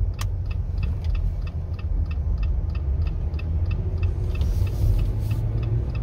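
Jeep Gladiator's turn-signal indicator ticking evenly, about three clicks a second, over the low rumble of the truck driving, with one louder click just at the start.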